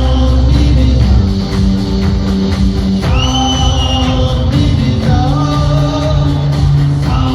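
Live rock band playing, with singing over guitar; a high note is held for about a second partway through.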